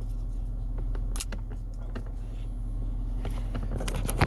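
Steady low hum of a car idling, heard inside the cabin, with scattered small clicks and rustles of handling and one sharp, loud click near the end.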